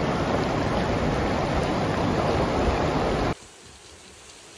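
Loud rushing of muddy floodwater with wind noise on the microphone. About three seconds in it cuts off suddenly to a much quieter, steady hiss of heavy rain.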